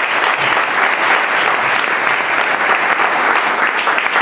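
Audience applauding, a dense steady round of clapping.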